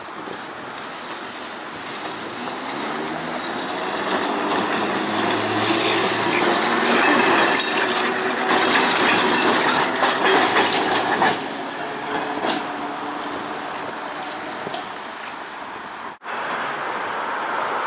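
Perley Thompson 900-series New Orleans streetcar approaching and passing close by, its steel wheels clattering over the rails. The clatter builds to its loudest as the car goes past, then drops off suddenly a little after the middle.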